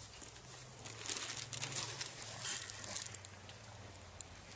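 Crinkling and crackling, a busy run of small crunches and rustles that thins out after about three seconds, over a low steady hum.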